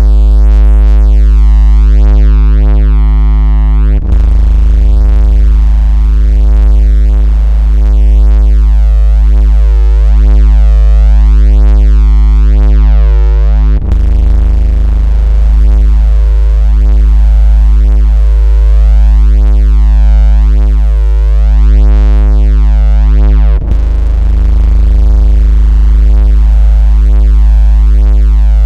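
A loud, steady synthesized bass tone at about 56 Hz, made as a phone-vibration and speaker water-ejection tone. It breaks off for a split second three times, about ten seconds apart.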